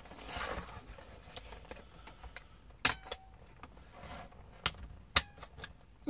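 Plastic laptop case being handled and turned over on a desk: a soft sliding rustle at the start, then a few sharp plastic clicks and knocks, the loudest just after five seconds in.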